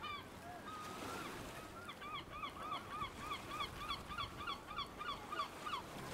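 Seagulls calling in a quick series of short squawks, about four a second, starting about two seconds in, over a faint background hiss.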